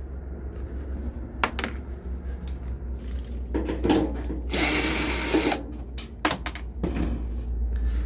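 Power drill backing out the small screws on a dryer's sheet-metal panel: short runs of the drill with sharp metal clicks between them, and a louder run lasting about a second halfway through.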